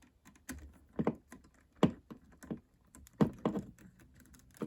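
Irregular sharp clicks and taps of a screwdriver working a tight terminal screw on a wall switch to free a wire, about seven in all.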